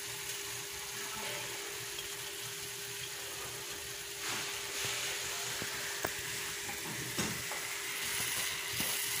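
Ground beef and diced red bell pepper sizzling steadily in a stainless steel frying pan while the last of the meat's liquid cooks off, with a couple of light clicks near the middle.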